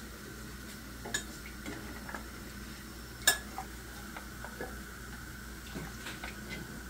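A metal spoon clinking and scraping against a frying pan and a glass cup as hot oil is spooned out of the pan, with a faint sizzle of the oil underneath. Several scattered clinks, one sharp one about three seconds in the loudest.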